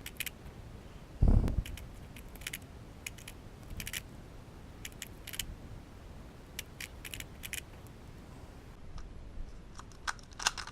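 A Rubik's Cube being turned by hand: irregular clicks as its plastic layers are twisted and snap into line, with one dull thump about a second in.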